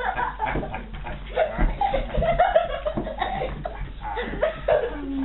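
People laughing and talking indistinctly.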